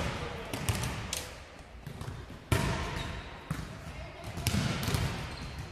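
Volleyball being hit during a rally: a series of sharp smacks of the ball, the loudest about two and a half seconds in, echoing in a large sports hall.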